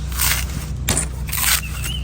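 Sharp knife chopping and scraping the dry, hard husk of an old coconut, about five quick strokes.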